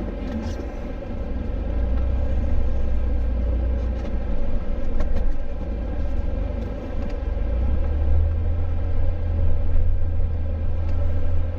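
Jeep driving, a steady low rumble of engine and tyres that shifts slightly higher about eight seconds in.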